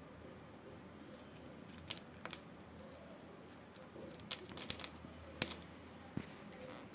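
Shards of a broken unglazed clay pot let fall from a hand onto a hard floor, clinking sharply against the floor and each other: two clinks about two seconds in, a quick cluster between four and five and a half seconds, and two light ticks near the end.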